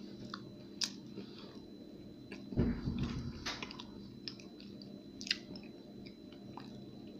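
A person chewing a bite of chocolate-coated alfajor with dulce de leche filling close to the microphone: soft mouth noises with a few sharp clicks and a louder burst about two and a half seconds in. A faint steady hum lies underneath.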